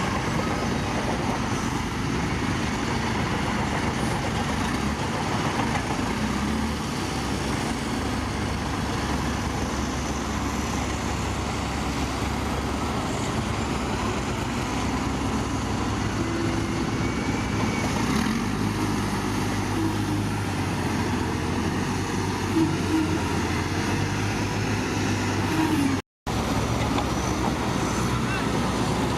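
Heavy diesel earthmoving machinery running steadily, a continuous low engine drone whose deep tone shifts about two-thirds of the way through.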